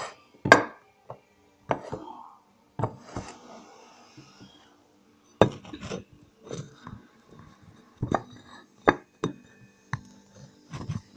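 Irregular short knocks, clicks and light clatters of hard objects, about fifteen spread through, each with a little ringing; the loudest comes about half a second in.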